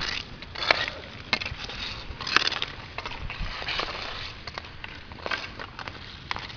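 Inline hockey skates rolling and scraping on an outdoor rink surface, with irregular sharp clicks of hockey sticks striking the puck and the court. The two loudest clicks come under a second in and about two and a half seconds in.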